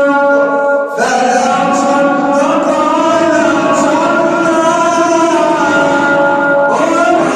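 A man chanting Quran recitation in a melodic style, holding long drawn-out notes that bend slowly in pitch. There is a short break about a second in, and a new phrase begins near the end.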